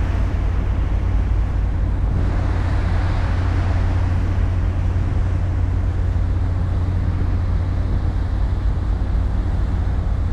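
Steady low drone of a ferry's engines, with a hiss of wind and rushing water over it.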